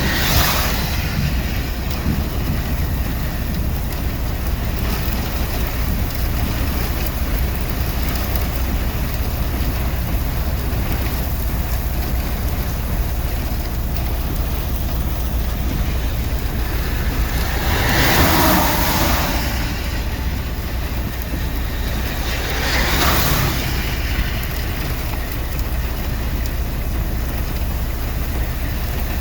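Thunderstorm wind and rain, with a steady low rumble of wind buffeting the microphone. Two louder whooshing swells come about two-thirds of the way through.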